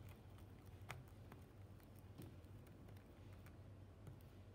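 Faint, sparse clicks of a wooden stirring stick against a small glass dish as it works a thick glue-based slime mixture, one click a little louder about a second in, over a low steady hum.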